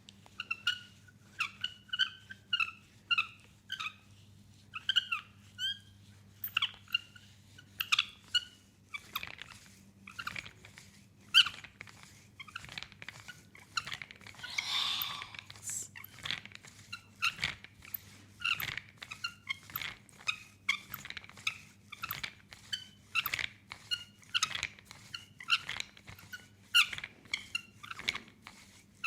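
Hands massaging oiled skin. Short squeaks of hands sliding on skin for the first several seconds, then a steady run of sharp wet smacks, about two a second, with a brief hiss about halfway through.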